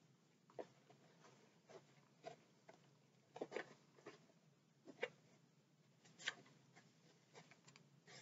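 Faint rustles and small ticks of hands pulling and threading the laces of a canvas lace-up trainer, coming irregularly a dozen or so times.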